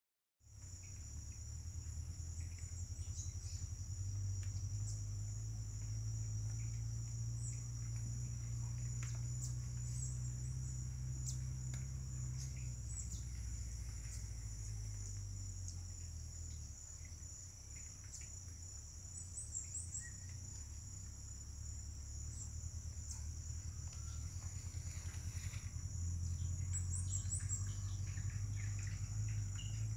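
Steady high-pitched drone of a forest insect chorus, holding a few even pitches, over a low steady rumble. A few short bird chirps come in near the end.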